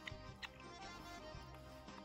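Background music, folk-style, with two short clicks about half a second apart near the start.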